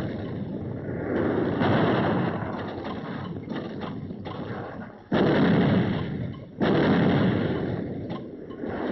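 Artillery pieces firing: three heavy shots about a second, five and six and a half seconds in, each dying away in a long rumble.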